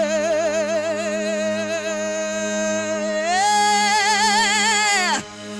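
A worship singer holds a long sung note with a wavering vibrato, slides up to a higher held note about three seconds in, and lets it fall away near the end, over a steady low sustained accompaniment tone.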